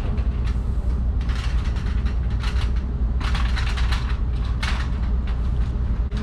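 Rustling and crackling of a large painted cloth backdrop being lifted and fastened up by hand, in clusters of short clicks, over a steady low rumble.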